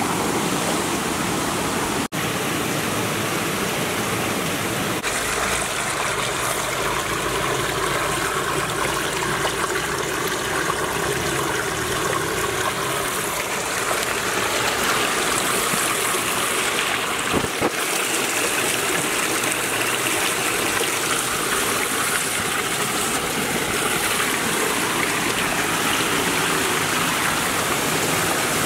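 Shallow stream water rushing and splashing over rocks, a steady flow spilling down a small cascade between boulders.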